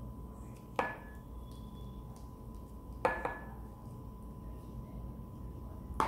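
A plastic rice paddle knocking sharply against dishes while spreading sushi rice: a few hard taps with a short ring after each, about a second in, a quick double tap near three seconds, and one more at the end.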